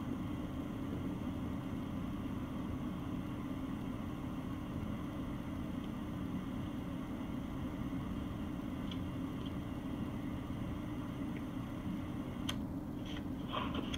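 Steady low rumbling noise at an even level, with a single sharp click near the end followed by a couple of faint short sounds.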